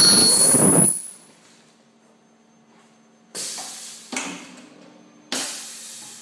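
Ultrasonic welding machine at work on HDPE parts: a loud burst of noise with a high whine in the first second, then three shorter noisy bursts that each fade away, over a faint steady hum.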